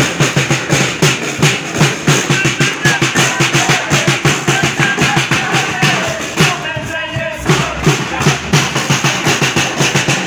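Drum-heavy music with a fast, steady beat of bass and snare drums, dipping briefly about two-thirds of the way through.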